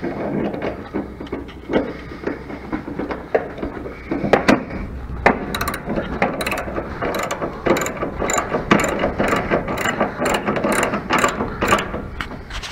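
Socket ratchet wrench clicking as a bolt is turned, settling into a steady run of quick clicks, about three a second, from about five seconds in.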